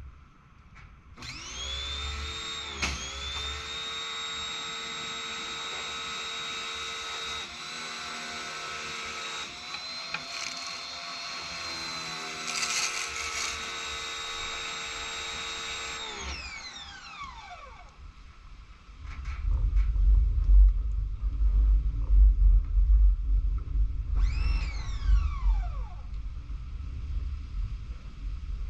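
Pressure washer's electric motor running with a steady whine, then winding down in a falling glide a little past halfway as it shuts off; later it spins up briefly and winds down again. Low wind rumble on the microphone in the second half.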